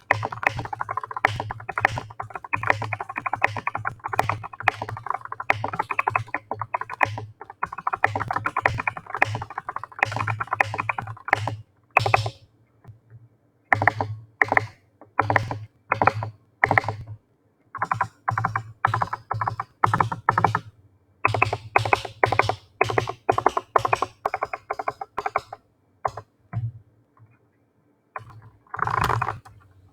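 Typing on a BK98 keyboard: fast, continuous keystrokes for the first dozen seconds, then shorter bursts of key clicks with pauses between them. Background music plays underneath.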